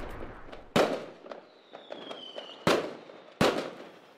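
Fireworks going off: three sharp bangs, about a second in and twice near the end, with scattered crackling between them and a thin whistle falling slightly in pitch in the middle.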